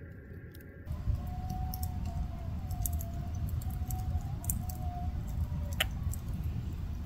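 Distant wavering howl, starting about a second in and held for about four seconds, with a shorter howl near the end, over a low rumble and scattered faint clicks.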